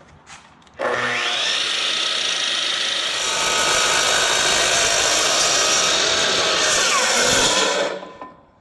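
Power miter saw with a wood-cutting blade spinning up about a second in and cutting through 1/4-inch 6061 aluminum angle stock, loud and steady. The blade winds down near the end.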